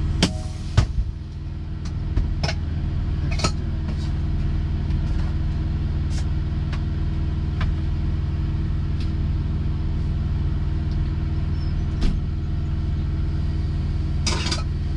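Steady low hum of a Peterbilt semi truck's diesel engine idling, heard inside the cab. Over it come scattered knocks and clatter of gear and a frying pan being handled, the sharpest knock about a second in.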